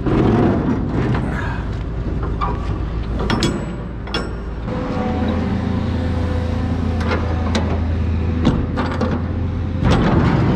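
Steel shipping container doors being unlatched and opened by hand: sharp metallic clanks and clicks from the locking handles and bars. An engine runs steadily underneath for a few seconds in the middle.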